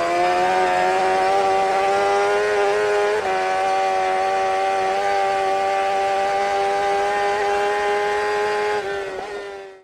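An engine running at high, held revs, a steady tone with many overtones that dips briefly about three seconds in and fades out at the end.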